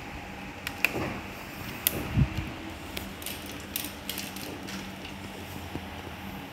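Plastic packing-strap strips clicking and crackling irregularly as hands bend and tuck them into the rim of a woven basket, with a dull thump about two seconds in.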